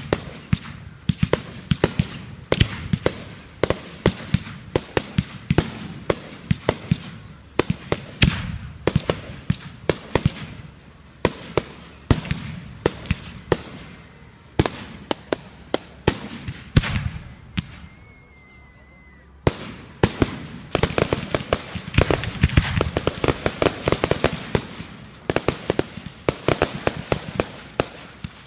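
Fireworks going off in a rapid, dense barrage of sharp bangs and pops. They ease off briefly a little past halfway, then resume even more densely.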